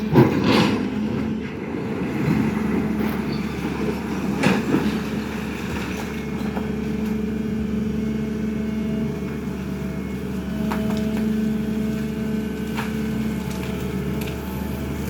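SANY excavator's diesel engine running steadily under load, with a few held tones over the drone. A sharp knock comes right at the start and another about four and a half seconds in.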